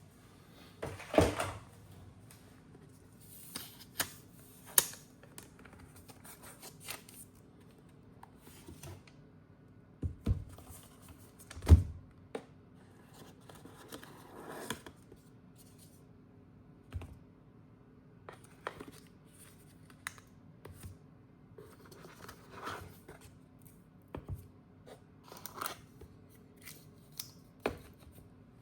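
Hands handling a laptop box and its packaging: scattered taps, clicks and knocks of cardboard and the laptop being set down, with a few louder thuds and a brief rustle of paper or wrapping.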